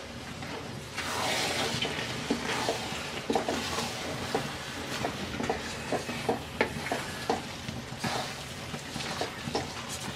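Thick jujube pickle sizzling in a pan while a wooden spatula stirs it. The hiss swells about a second in, and from about three seconds in the spatula knocks and scrapes against the pan a few times a second.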